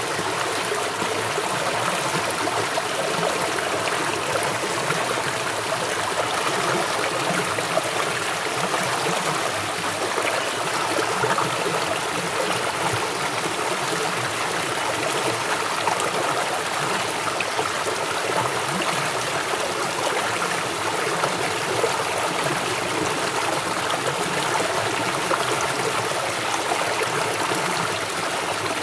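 River water flowing swiftly over stones: a steady rushing and gurgling with no pauses.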